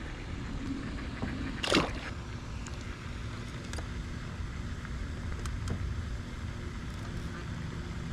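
Steady low rumble of a small boat on the water, with a few faint clicks and one sharp, brief splash-like burst a little under two seconds in.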